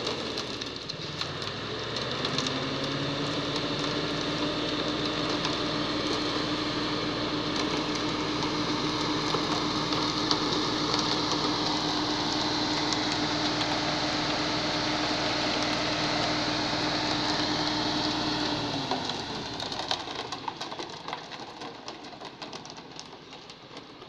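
Concrete mixer truck's diesel engine revving up about two seconds in and holding a steady high speed, then dropping back about nineteen seconds in. Over it runs a hiss of wet concrete sliding down the chute.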